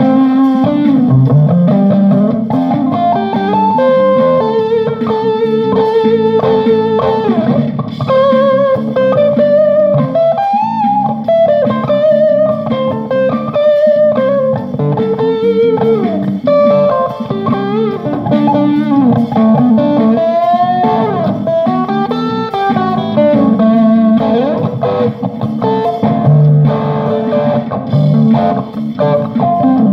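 Electric guitar played in a long improvised jam, a single-note melody with wavering vibrato and pitch slides from string bends over lower sustained notes.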